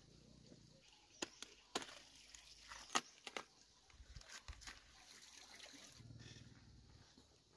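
Quiet outdoor background with a few sharp clicks and snaps scattered through it, the loudest about three seconds in.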